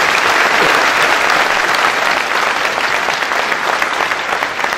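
Large audience applauding, thinning out toward the end.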